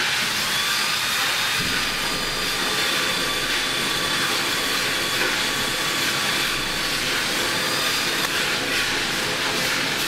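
Power drill running steadily with a hiss and a faint high whine, boring the oil-squirter hole through an MGB rocker arm clamped in a vise.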